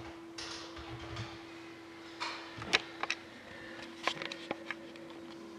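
Several sharp clicks and some rustling as a computer is operated, over a steady low hum. The clicks come in a cluster from about two seconds in until near the end.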